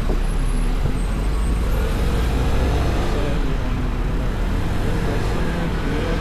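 Vespa Primavera 125 scooter's single-cylinder engine running steadily while riding, with road noise.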